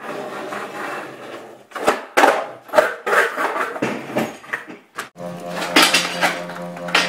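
Skateboard on a concrete floor: wheels rolling, then a string of sharp wooden clacks and knocks as the board's deck and tail hit the ground. A steady low tone sets in about five seconds in.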